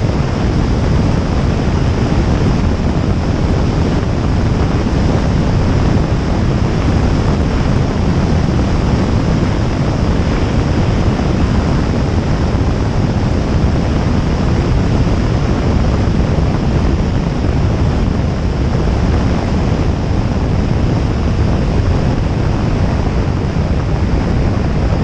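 Loud, steady rush of airflow buffeting the microphone of a camera mounted outside a Jabiru J160 light aircraft in flight, with the drone of its engine and propeller running beneath it.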